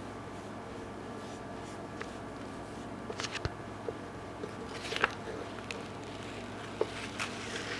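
Scattered small clicks and crinkles from handling a vinyl decal and its backing sheet while pressing it into place, over a steady low hum.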